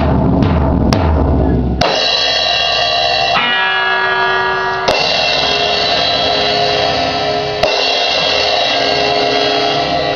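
Drum kit solo: quick bass drum and drum hits for about the first two seconds, then cymbal crashes struck again every second or three and left ringing.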